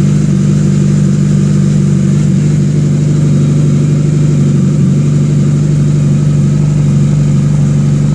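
A motor or engine running steadily: a loud, even hum that does not change.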